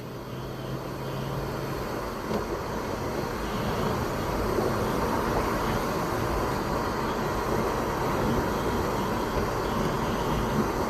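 Audi B5 S4 on its test drive: engine and road noise of the car under way, growing louder over the first few seconds as it picks up speed and then holding steady.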